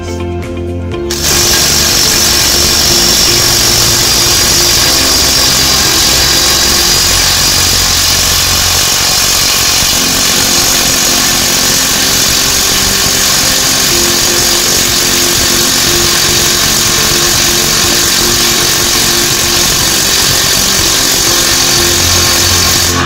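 Mailtank cordless impact wrench hammering continuously on a wheel-hub nut torqued to 300 Nm, starting about a second in and stopping near the end. The nut does not break loose: the wrench is not strong enough for this torque, and its body runs very hot.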